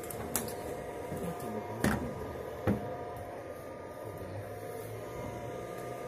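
Three sharp knocks over a steady hum, the loudest about two seconds in.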